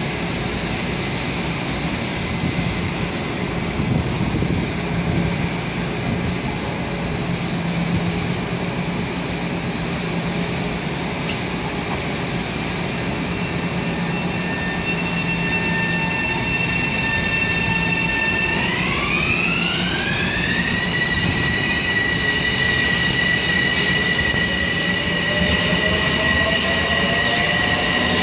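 Bombardier M7A electric multiple-unit train pulling out: a steady rolling rumble, then a high electric whine of a few tones that climb together about two-thirds of the way through and hold, with lower tones starting to climb near the end as the train picks up speed.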